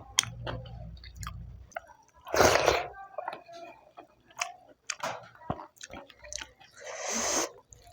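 Close-up eating sounds of a person chewing: wet mouth clicks and smacks, with two louder, longer noisy smacks or slurps about two and a half seconds in and near the end.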